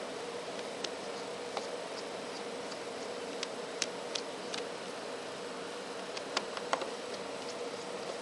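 Scattered small, sharp clicks and taps of a metal tool prying at a disassembled mobile phone's frame and clips, about eight in all, over a steady low hum.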